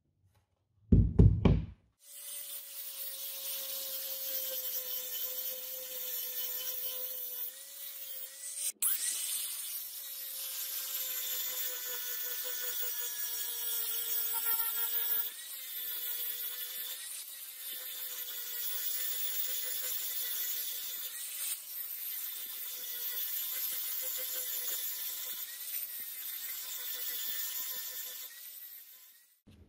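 Angle grinder grinding a steel knife blade: a steady motor whine with a hiss of grinding, the pitch dipping slightly each time the disc bears down, then stopping near the end. A short loud thump comes about a second in, just before the grinder starts.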